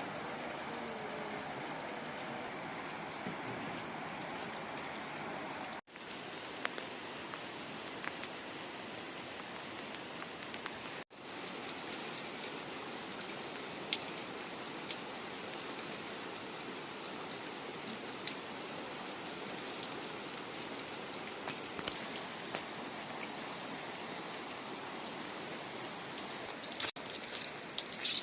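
Steady rain falling, with scattered drops ticking on nearby surfaces; the sound cuts out briefly twice and a few sharper taps come near the end.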